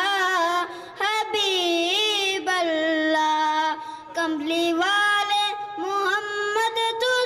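A boy singing a naat solo into a microphone, holding long notes that bend and waver in pitch, with short breaths between phrases.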